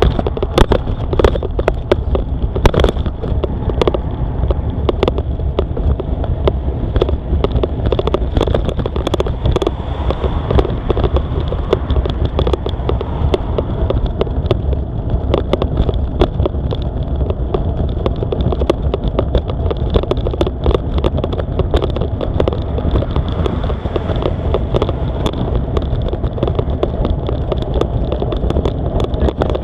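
A cyclist breathing hard while pedalling uphill, over a steady low rumble of wind buffeting the microphone. Frequent sharp clicks and rattles from the bicycle on a rough surface run through it, with a thin steady high whine.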